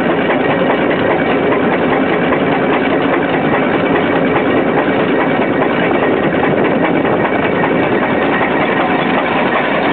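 Engine running steadily without pause.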